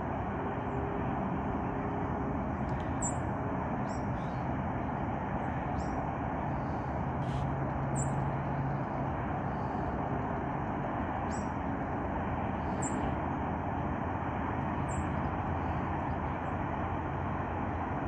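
Steady hum of distant freeway traffic, with a few short, high chirps scattered through it.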